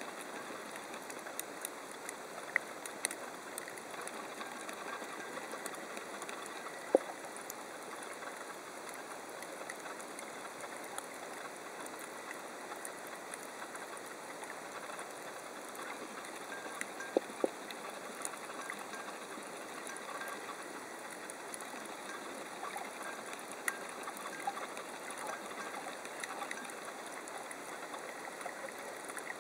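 Underwater reef ambience heard through a camera's underwater housing: a steady hiss scattered with short sharp clicks and crackles. A few louder clicks come about 7 and 17 seconds in.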